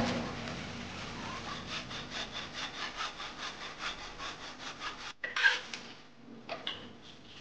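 Saw cutting through a plastic water pipe in quick, even strokes, about five a second, which stop abruptly about five seconds in. Then a metal spatula scrapes and clanks in a wok, loudest just after the saw stops, with two lighter scrapes near the end.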